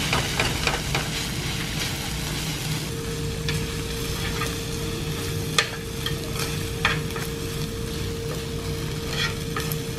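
Spicy stir-fry and rice sizzling in a hot skillet on a tabletop burner as a metal spoon and chopsticks chop and stir it into kimchi-style fried rice, with occasional sharp scrapes and clinks against the pan.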